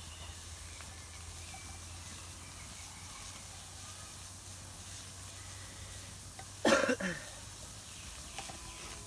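A person coughs once, a short double cough about two-thirds of the way in, over a steady hiss.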